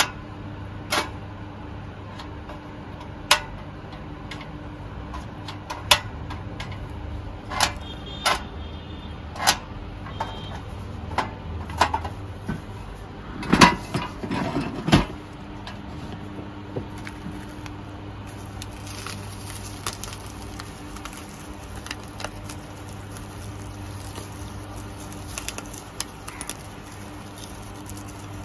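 Clicks and knocks of a portable cassette gas stove's metal body being handled, with a burst of louder clatter about halfway through as its hinged cartridge-compartment lid is opened. A steady low hum runs underneath.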